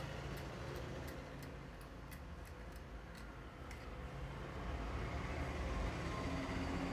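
Head massage: a run of faint, sharp clicks at about three a second, stopping about four seconds in. A steady low rumble sits beneath and grows louder after the clicks stop.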